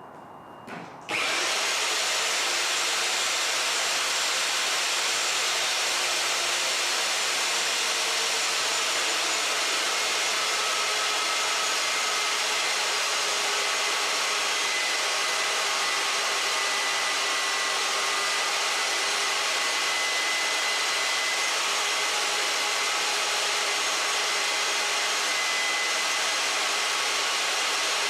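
Rotabroach magnetic drill starting up about a second in and then running steadily, a constant motor whine over a dense mechanical noise, as its annular cutter bores holes in steel.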